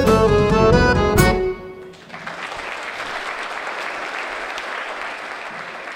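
A live folk band with accordion ends a song on a held chord, closing with a sharp drum hit about a second in. The audience then applauds from about two seconds on.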